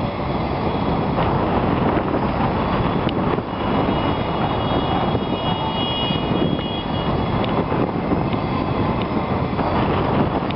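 Mini quadcopter hovering low, its propellers buzzing under heavy wind noise on the microphone. A thin high motor whine stands out for a few seconds about halfway.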